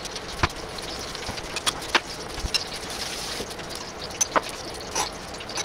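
Irregular light clicks and knocks, about eight of them, over a steady background hiss.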